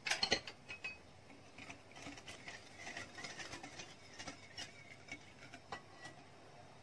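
Wire balloon whisk beating milk into melted butter and egg in a glass bowl: the wires clink and scrape against the glass. A few loud sharp clicks right at the start, then a busy run of lighter irregular clicks that stops about six seconds in.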